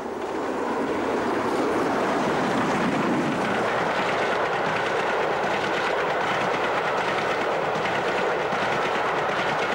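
Steam locomotive and its passenger train running past at speed. The sound builds over the first second, then holds steady.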